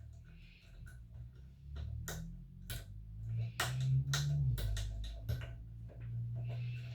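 Lock-picking tools clicking and scraping irregularly against the levers inside a five-lever padlock as it is picked, over a low hum.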